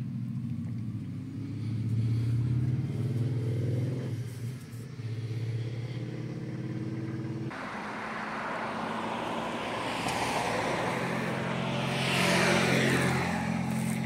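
A large vehicle engine running steadily. About halfway through, the sound cuts abruptly to a louder, noisier engine, which swells to its loudest near the end with a falling pitch as the vehicle passes close.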